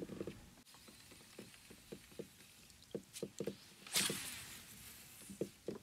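Faint scattered knocks and taps of hands and gear on a plastic fishing kayak, with a brief hiss about four seconds in that fades over about a second.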